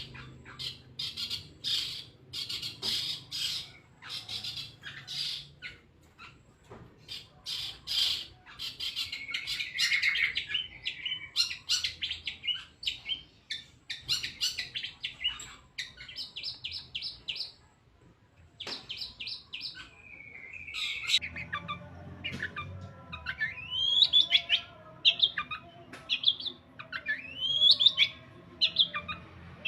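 Long-tailed shrike (cendet) singing a varied mimicking song: harsh chattering and rapid ticking runs, then from about two-thirds of the way in a series of rising whistled notes.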